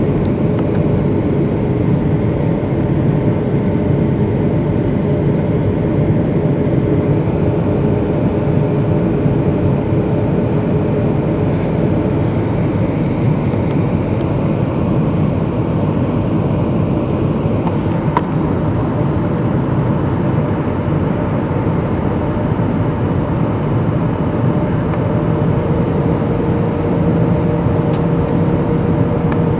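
Steady cabin noise of a Boeing 757-200 descending on approach, heard from a window seat beside the engine: the rush of airflow with the hum of the Pratt & Whitney PW2037 turbofan. One engine tone fades out about twelve seconds in and a slightly higher one comes in near the end.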